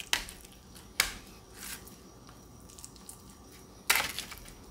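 Spatula scraping and clicking against a small glass bowl while a mayonnaise-and-breadcrumb slurry is spread onto a fish fillet on a metal sheet pan. There are a few short clicks, then a longer scrape of about half a second near the end.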